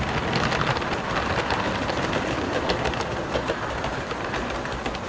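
OO gauge model train, a Bachmann S&D 7F locomotive hauling a rake of coaches, running past on the layout's track. Its wheels click over the rail joints and pointwork, and the sound fades a little as the train moves away.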